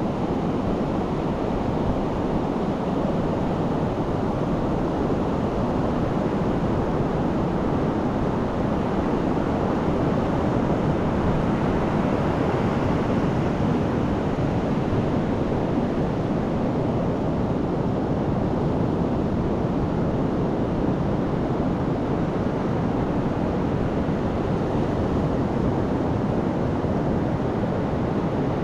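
Pacific surf breaking offshore and washing up a sandy beach: a steady rushing that swells slightly partway through, with wind buffeting the microphone.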